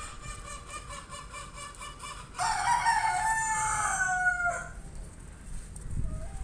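A rooster crows loudly for about two seconds, starting a little over two seconds in, its pitch falling toward the end. Before it, a fainter, higher drawn-out call carries on.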